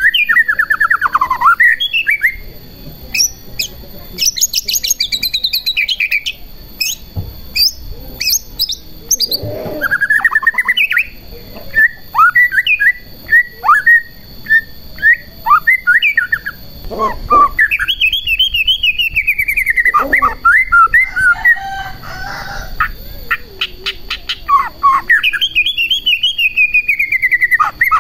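White-rumped shama (murai batu) singing a long, varied song: quick whistles, fast trills and chattering note runs, with long falling whistled phrases near the middle and again near the end.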